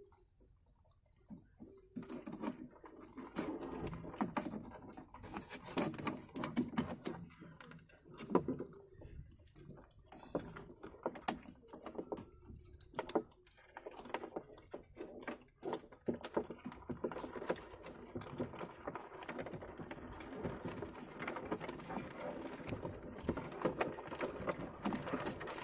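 Irregular clicking and scratching from a live mud crab being tied with string: its shell and legs scraping on a painted hard surface and the string drawn tight around it, starting about two seconds in.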